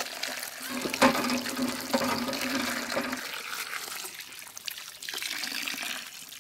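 Water from a hand pump's spout pouring and splashing onto a steel plate of snails as they are scrubbed by hand under the stream. The flow surges about once a second for the first few seconds.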